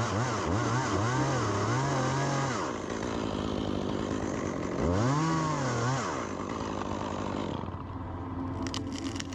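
Chainsaw revving up and down several times in quick succession, then running steadily, with one more rev about five seconds in.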